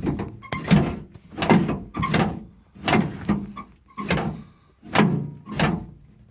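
Car door handle mechanism worked over and over by hand, its linkage and latch clacking about once or twice a second. The handle linkage moves freely, but the door lock stays jammed and will not release.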